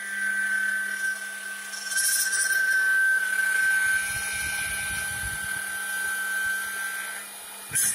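CNC wood lathe cutting a turned wooden spindle: a steady high-pitched whine from the router cutter over the rough noise of the bit taking wood off the turning blank. The whine fades out shortly before the end.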